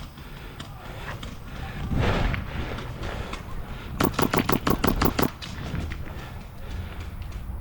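Airsoft rifle firing a rapid full-auto burst of about ten shots, roughly eight a second, lasting just over a second about four seconds in.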